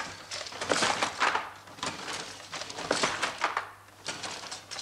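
Wooden handloom being worked: a string of clattering wooden knocks from the shuttle being thrown and the beater banging the weft up, roughly once a second.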